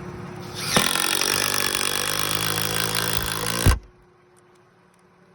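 Makita cordless impact driver driving a screw into a roof anchor: a motor whine with rapid hammering that starts about half a second in, runs about three seconds and stops suddenly.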